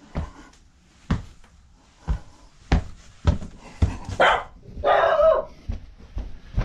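A dog barking, twice, around the middle. Under the barks runs a string of sharp thumps about every half second.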